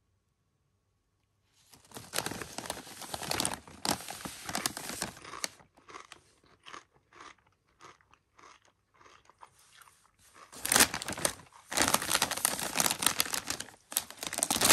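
Kettle-cooked potato chip being bitten and chewed, starting about a second and a half in with loud crunching that thins to scattered small crunches. Near the end, louder crinkling of the foil-lined chip bag as it is handled.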